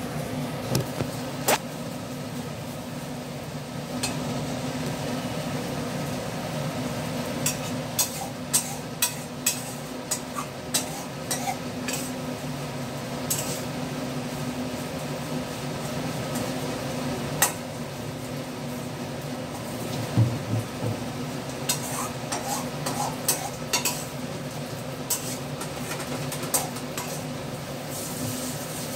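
Food frying and being stirred in a metal wok, with a steady sizzle and irregular sharp clinks and scrapes of a metal spatula against the pan, over a steady hum.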